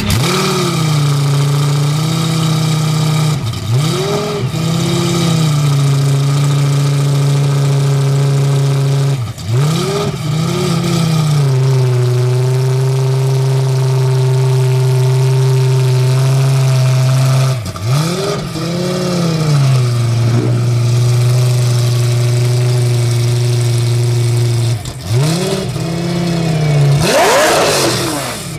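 Lamborghini Gallardo GT3 race car's V10 idling loudly. It is blipped about half a dozen times in short throttle revs that rise and drop straight back to idle. The longest and loudest rev comes near the end.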